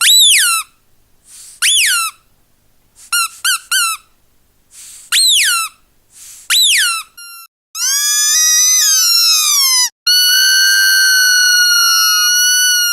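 Squeaky dog toy squeezed again and again. Single squeaks drop in pitch, with a quick run of three about three seconds in. From about the middle come two long, drawn-out squeals, with faint air hiss as the toy refills between squeezes.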